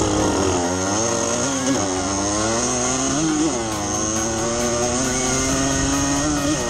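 Dirt bike engine pulling hard under the rider. Its pitch climbs and drops back three times, each rise cut short as the bike shifts up a gear.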